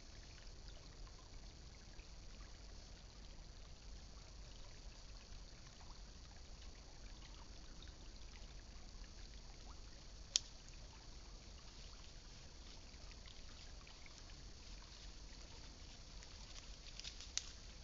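Faint, steady trickle of creek water, with one sharp click about ten seconds in and a few lighter clicks near the end.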